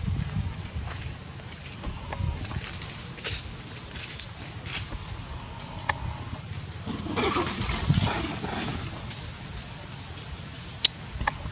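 Steady high-pitched drone of insects over a low rumble. A short noisy burst comes about seven seconds in, and a sharp click near the end.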